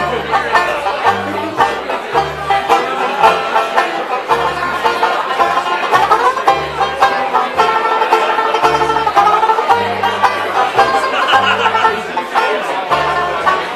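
Tenor-style jazz banjo strumming chords over a plucked upright double bass, which lays down a steady beat of low notes about two a second.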